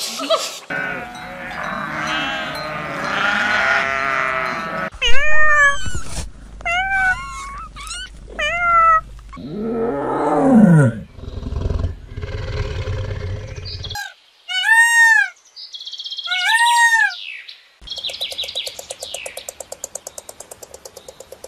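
A run of different animal calls cut one after another: repeated arching calls in the first half, a tiger's deep falling roar about ten seconds in, two more arching calls, then a fast, even buzzing rattle near the end.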